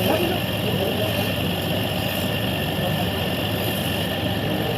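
Wood lathe running steadily with a constant hum.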